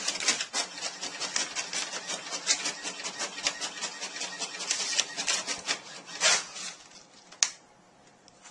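Inkjet printer printing: the print head sweeping back and forth in quick rasping passes, several a second, with paper rustling. It stops about seven seconds in, followed by a single click.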